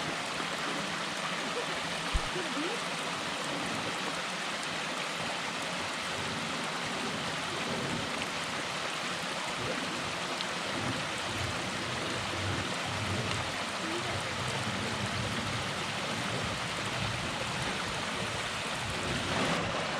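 Steady rush of water from a small waterfall and its creek. A brief knock about two seconds in.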